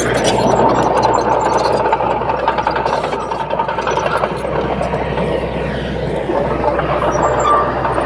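Heavy diesel earthmoving machine running under load: a steady low engine hum under dense metallic clattering and squeaking.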